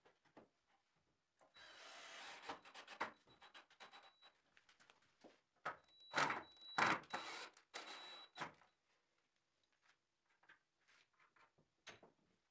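Wood being rubbed and scraped in two bursts of a few seconds each, with light knocks and clicks between them and after.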